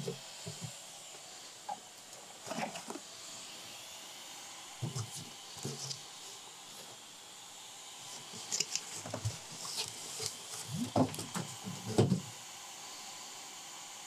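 A cardboard shipping box lined with foam packing being handled and moved off a wooden workbench: scattered knocks, scrapes and rustles, busiest and loudest near the end, over a steady faint hiss.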